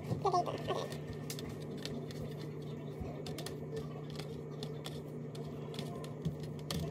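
Soft taps and light rustling of hands rolling crescent roll dough and setting it down on a baking sheet, over a steady low hum.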